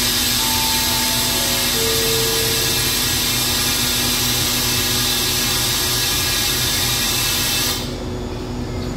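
Compressed air hissing loudly and steadily from a standing diesel-hauled passenger train, cutting off suddenly near the end, over the steady low hum of the idling train.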